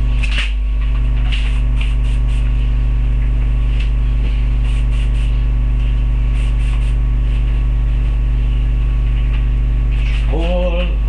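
A loud, steady electrical mains hum runs under everything, with short scattered hissing and rustling noises over it. A voice starts singing near the end.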